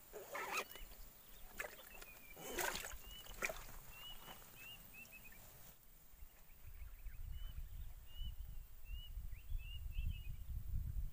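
Small birds chirping in short, repeated high notes, over a few sharp rustling knocks of fishing gear being handled in the first few seconds. A low rumble builds in the second half.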